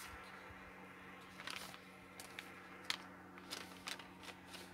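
Faint rustling and crinkling of paper and plastic packaging as a package is opened and its contents are taken out, with a few small sharp crackles.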